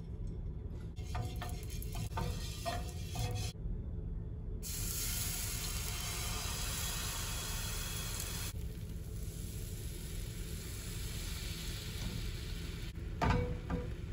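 Gram-flour (besan) batter sizzling on a hot nonstick tawa as it is poured and spread. The sizzle comes in strongly about five seconds in and eases off after about four seconds, with a short knock near the end.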